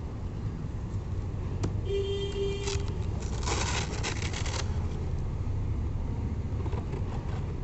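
Hook-and-loop (Velcro) wrist strap of a boxing glove being pulled apart: a scratchy, crackling rip lasting about a second and a half, starting about three seconds in, over a steady low background rumble.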